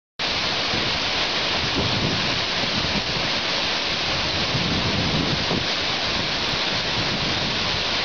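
Steady, even rush of the Vauchara waterfall, water pouring down without a break.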